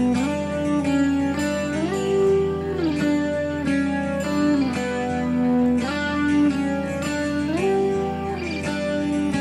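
Background music: guitar with slide guitar, notes gliding up and down between pitches over steady strumming.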